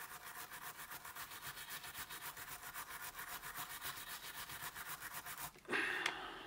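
Tiny wire brush scrubbed quickly back and forth over the teeth of an adjustable wrench's sliding jaw, scratching out dirt at about seven strokes a second. The brushing stops about five and a half seconds in, followed by a brief louder noise.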